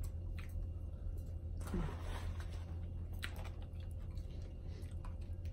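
Chewing and the handling of boiled seafood: crab legs and lobster shell being pulled apart and bitten, with a few short sharp clicks and cracks, over a steady low hum.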